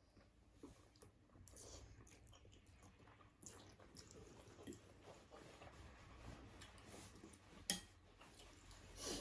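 Faint chewing and mouth sounds of people eating, with scattered small clicks and one sharp click about three-quarters of the way through.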